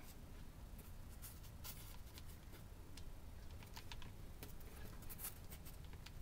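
Faint, irregular light clicks from a hot glue gun being worked as glue is laid over a foam piece.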